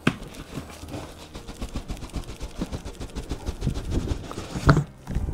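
Cardboard shipping boxes handled on a carpeted floor: a plastic-wrapped outer box is tipped upside down and an inner box slid out, with irregular scraping and crackling of cardboard and plastic wrap. A knock right at the start and another near the end.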